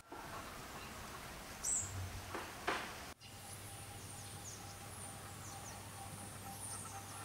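Outdoor ambience with small birds chirping now and then in high, short notes. There are a couple of brief louder noises about two seconds in, and the sound cuts out for an instant about three seconds in, after which a faint steady low hum runs.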